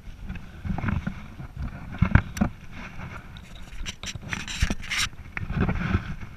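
Close rustling and scraping of clothing and gear against rock as a hunter shifts his position right beside the microphone, with scattered knocks and sharper scuffs, the loudest about two seconds in and again between four and five seconds in.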